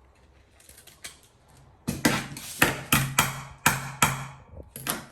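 A quick run of about eight sharp crackles and rips, starting about two seconds in, from sticky tape and paper being pulled and handled.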